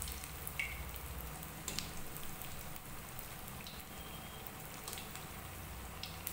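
Potato smiley snacks deep-frying in hot oil: a steady sizzle with scattered crackles, and a few light clicks as a wire spider skimmer turns them in the pan.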